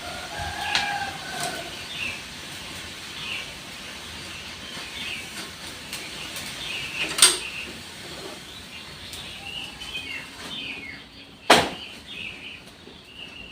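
A rooster crows near the start over small birds chirping repeatedly. Two sharp knocks, the loudest sounds, come about seven and eleven and a half seconds in.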